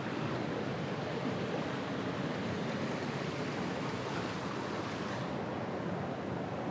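A mountain stream rushing steadily over rocks and a small cascade.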